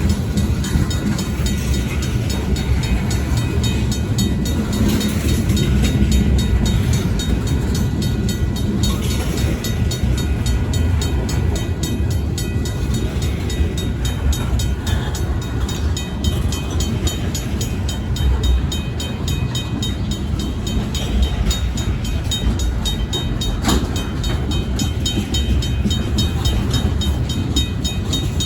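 Slow Union Pacific local freight train rolling over a road crossing, with a steady heavy rumble of wheels and cars and occasional clanks. The crossing's RACO mechanical bell strikes rapidly and continuously over it.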